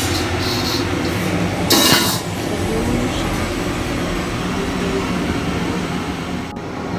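Steady rush and hum of a lit gas stove burner heating a wok of water. A brief metallic clink comes about two seconds in.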